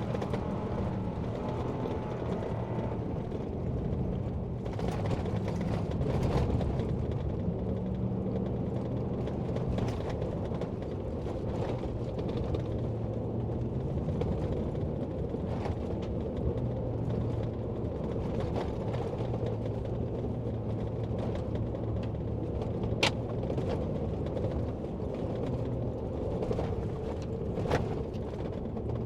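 Vehicle engine running at shifting revs while driving slowly over a rough dirt two-track, with rattles, creaks and scattered knocks from the bouncing vehicle. A sharp knock about 23 seconds in is the loudest.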